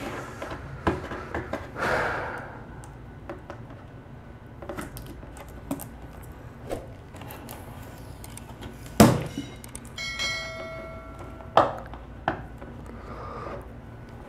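A cardboard box handled by hands: scraping, rubbing and light knocks against a table, with a sharp thump a little past halfway. Just after the thump comes a short bell-like chime.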